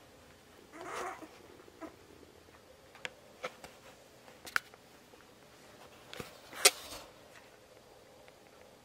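Small sounds from a pile of sleeping three-week-old Aussiedoodle puppies: a brief soft puppy noise about a second in, then a few scattered light clicks and taps as they stir, the loudest near the end.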